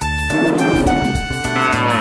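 Upbeat instrumental nursery-rhyme backing music with a steady beat.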